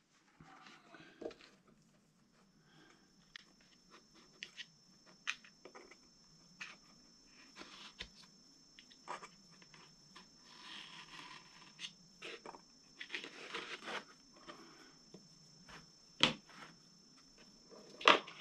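Hobby knife cutting the covering film on a model airplane's fuselage along a steel ruler: scattered light scratches and clicks, with a couple of sharper taps near the end.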